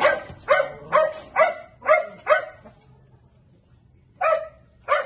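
A small dog barking: a quick run of six barks, about two a second, then a pause of over a second and one more bark near the end.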